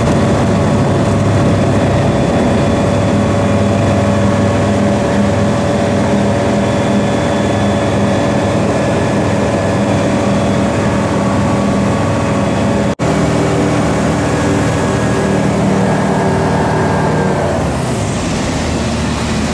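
C42B ultralight aircraft's engine and propeller running steadily through the takeoff roll and climb-out, heard loud from inside the cockpit. The sound cuts out for an instant about two-thirds of the way through, and the engine note changes near the end.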